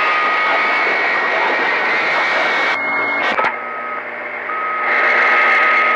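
CB radio receiver on channel 28 between transmissions, giving out loud static hiss with steady whistling tones. About three seconds in the noise cuts off with a couple of clicks, then comes back quieter with a steady whistle, and the hiss swells again near the end.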